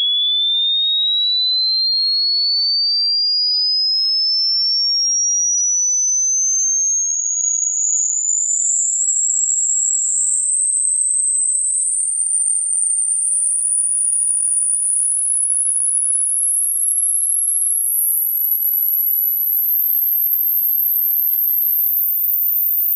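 A single pure test tone rising steadily in pitch from a high whistle to a very high, thin whine: a hearing-test sweep climbing into the pitches that ageing ears stop hearing.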